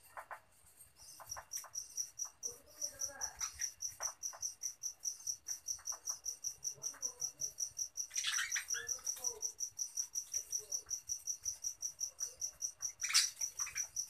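High insect chirping pulsing evenly about six times a second, over budgerigars' irregular warbling chatter, with one sharp, loud budgie call near the end.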